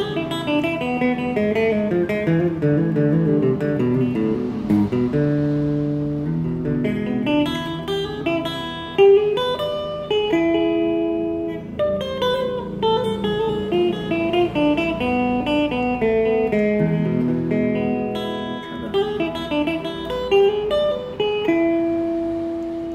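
Gibson semi-hollow-body electric guitar playing a keroncong melody line in A minor: quick runs of single plucked notes, pausing on a held note about halfway through and again near the end. It is an alternative lick over the E chord.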